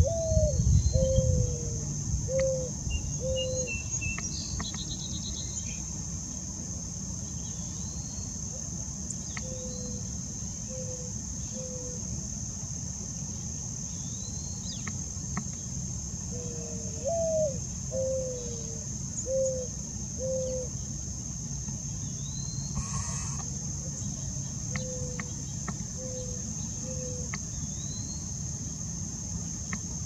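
Mourning dove cooing: a rising-then-falling first coo followed by three soft, lower hoots, near the start and again about halfway through, with shorter three-hoot phrases in between and near the end. A steady high insect trill runs underneath, with occasional short chirps from other birds.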